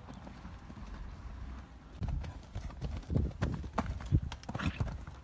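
Horse's hooves thudding on arena sand at the canter, getting louder from about two seconds in, with the heaviest strikes around the take-off and landing of a jump near the end.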